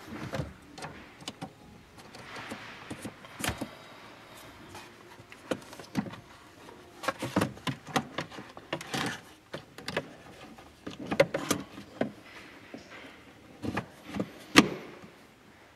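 Audi A3 shift knob and boot being worked back onto the gear lever by hand: scattered plastic clicks and knocks with brief rustling of the boot, the knob's button held pushed out so it will seat.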